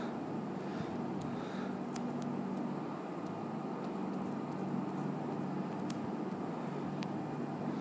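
Steady background noise with a low hum, like room or street ambience picked up by the microphone, with a few faint clicks.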